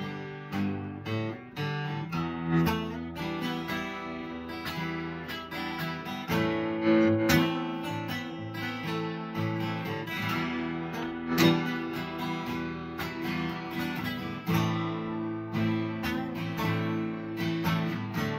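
Acoustic guitars strumming chords together, with a few harder strokes now and then.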